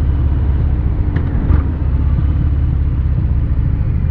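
2018 Harley-Davidson Fat Bob's 114 cubic inch Milwaukee-Eight V-twin idling steadily through Rinehart slip-on mufflers, with a deep, throaty exhaust note. A couple of faint clicks come about a second and a half in.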